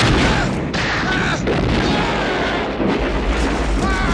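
Tanker truck exploding in a film: a huge blast that keeps going as a loud, steady rumble of the burning fireball, with brief high squeals about a second in and near the end.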